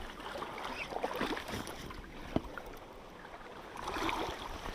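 River water sloshing and gurgling close against a camera held at the water's surface, with a single sharp knock about two and a half seconds in.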